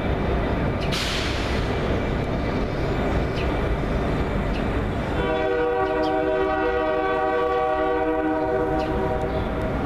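Diesel locomotives of a light engine move rumbling past, with a brief hiss about a second in. About five seconds in, a Nathan K3LA five-chime air horn sounds one long, steady blast that is still going at the end.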